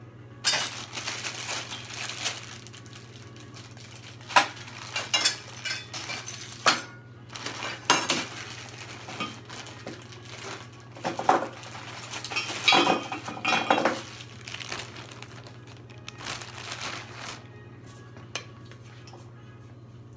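Small hard objects being handled: a long run of clinks, clicks and rustling, busiest from about 4 to 14 seconds in and dying away after about 17 seconds, over a steady low hum.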